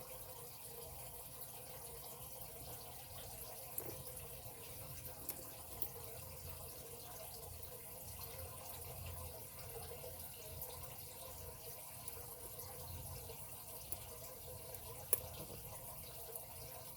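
Faint scattered metallic ticks of a lock pick working the pin tumblers inside a padlock, over a steady background hiss.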